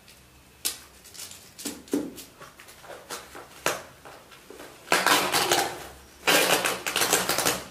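A cardboard box being opened and unpacked by hand: a few taps and scrapes, then two long spells of rustling and crinkling packing about five and six and a half seconds in.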